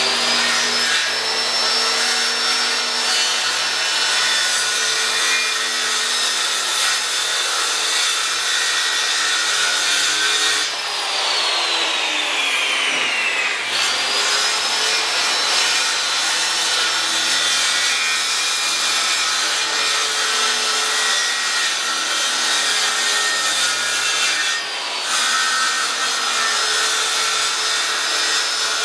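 Corded circular saw cutting through an OSB sheet: a steady high motor whine under the noise of the blade chewing the board. About 11 seconds in the saw stops, its whine falling as the blade spins down, and about three seconds later it spins back up and cuts on.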